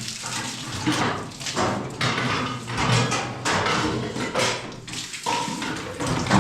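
Water running and splashing in surges as a kitchen is washed down.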